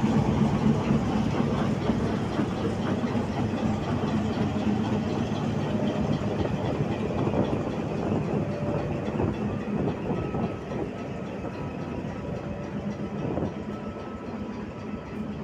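HBU-20 diesel-electric locomotive heard close up, its diesel engine running with a steady low hum that fades gradually. A faint thin whine joins in about ten seconds in.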